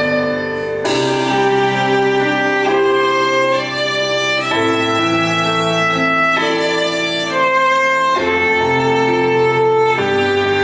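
Fusion gugak chamber ensemble playing: a haegeum carries a held, bowed melody over a lower accompaniment whose notes change every couple of seconds, with a new chord struck about a second in.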